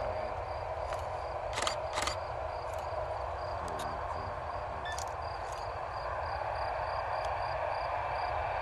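Insect chirping in an even pulse, about three chirps a second, over a steady background hum and low rumble. Two sharp handling clicks about one and a half and two seconds in as the camera is moved.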